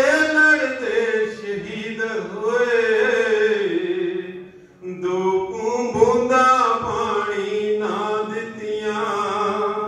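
A man singing a Punjabi devotional song, drawing out long wavering notes without clear words, with a short break for breath about halfway through.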